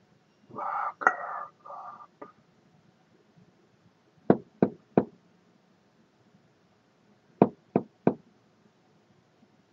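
Two groups of three sharp knocks, a little under three seconds apart, with the knocks in each group spaced about a third of a second. A brief, noisy sound in two parts comes about a second in, before the knocking.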